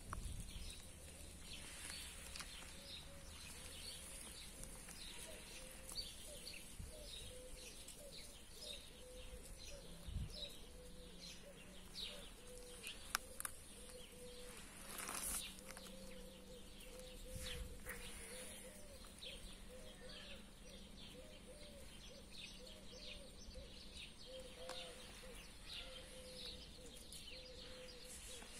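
Faint birds chirping repeatedly in the open air, with a few brief knocks or rustles along the way.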